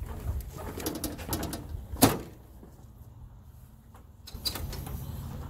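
Creaking and rustling of a person settling onto a garden tractor's seat, with one sharp click about two seconds in and more small clicks near the end; the engine is not running.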